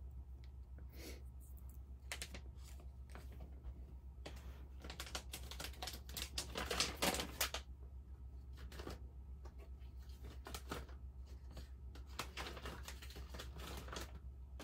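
Scattered small clicks, taps and rustles of makeup and its packaging being handled, busiest around the middle and again near the end, over a steady low hum.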